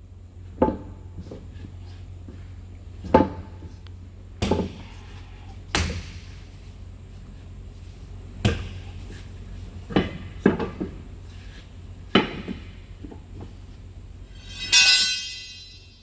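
Irregular metal knocks and clanks from brake and drum work on a semi truck, about eight in all, with a louder, harsher rasp lasting under a second near the end, over a steady low hum.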